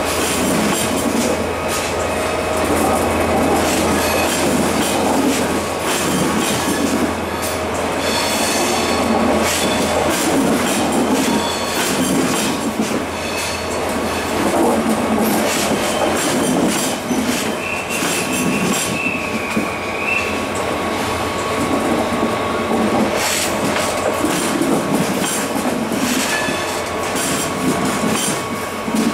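A train running along the rails, its wheels clattering in a steady stream of clicks over the track, with a brief high wheel squeal about two-thirds of the way through.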